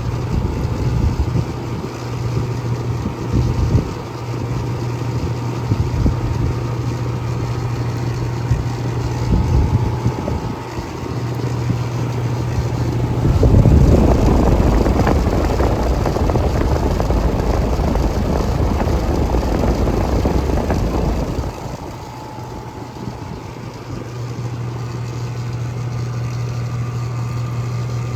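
American Standard Allegiance 14 outdoor air-conditioner unit running: a steady low compressor hum with fan noise. From about halfway through, a louder rush of air covers the hum for several seconds, then the steady hum returns.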